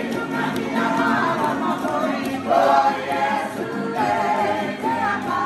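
A group of men singing together in full voice, accompanied by strummed ukuleles and acoustic guitars: a Cook Islands church string band and choir.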